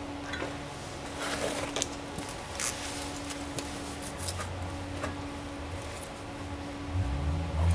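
Light metal scrapes and clicks with clothing rustle as a heavy steel motor end bell is worked into place over the shaft and bearing, with a few dull low thumps near the end. A steady hum runs underneath.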